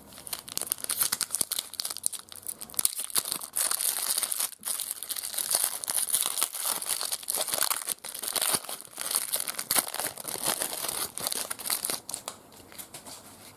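Foil trading-card pack wrapper being torn open and crinkled by hand: a dense, crackling rustle that keeps going and dies down near the end.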